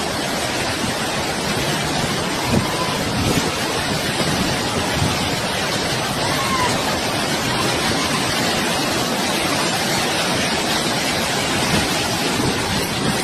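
Steady roar of rushing floodwater, an even noise that holds without let-up.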